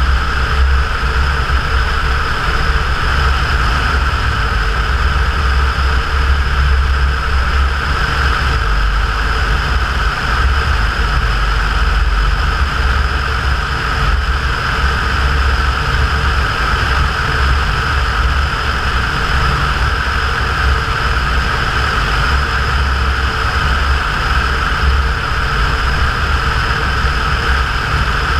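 Cessna 172's piston engine and propeller droning steadily in flight, with a strong low rumble and no change in pitch.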